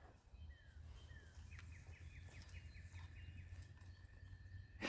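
Near silence with faint bird calls: a few short falling chirps, then a quick trill, over a low rumble.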